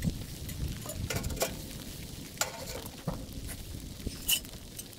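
Sheet-metal stovepipe sections and a small camp wood stove being handled and fitted together: scattered light clinks, scrapes and knocks, a few of them ringing briefly.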